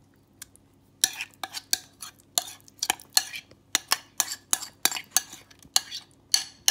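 A spoon scraping and clinking against a bowl as thick marinade is scooped out and dropped onto raw chicken: a quick run of sharp clicks and scrapes, about three a second, starting about a second in.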